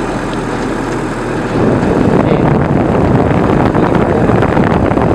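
Running noise of a vehicle driving along a road, heard from the vehicle itself: a dense, steady rumble that grows louder about one and a half seconds in.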